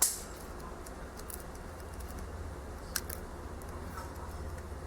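Quiet handling of a cardboard tarot box and booklet: a sharp tap at the start and a couple of faint clicks about three seconds in, over a steady low hum.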